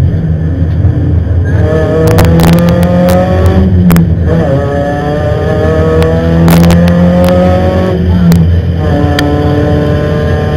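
Rally car engine heard from inside the cockpit under hard acceleration, climbing in pitch through the gears, with upshifts dropping the revs about four seconds in and again near eight and a half seconds. Sharp knocks and clicks cut in over the engine now and then.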